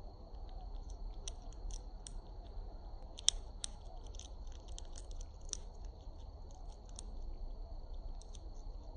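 A bird cracking open seed shells with its beak: a quick, uneven run of small crisp cracks and clicks, thickest in the middle and thinning out near the end.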